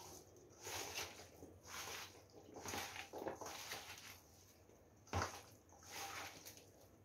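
Hands squishing and tossing oily, spice-coated jackfruit pieces in a steel bowl: faint, irregular wet swishes, with one sharper knock about five seconds in.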